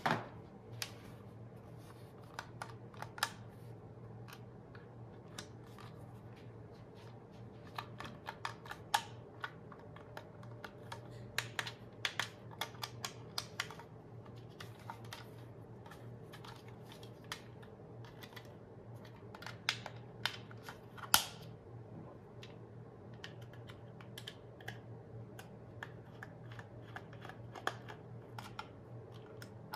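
Irregular hard-plastic clicks and taps as a toy RC truck's plastic remote-control transmitter is handled, turned over and worked at with a small screwdriver. The clicks come in clusters, with the loudest knock about two-thirds of the way through, over a steady low hum.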